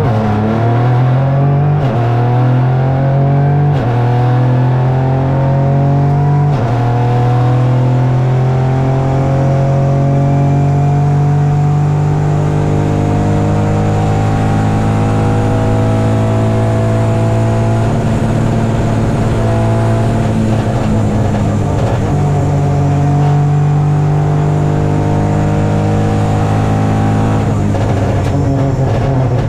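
Peugeot 208 Rally4's turbocharged three-cylinder engine pulling hard under acceleration. The pitch climbs and drops back with three quick upshifts in the first seven seconds, then holds a long, slowly rising pull, with a couple more shifts later on.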